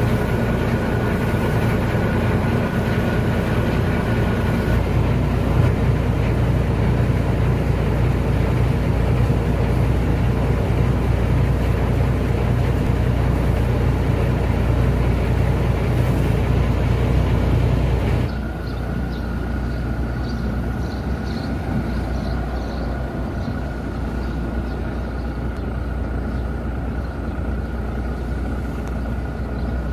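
Boat engine running steadily with a low drone. About eighteen seconds in it settles to a slightly quieter, lower-sounding drone.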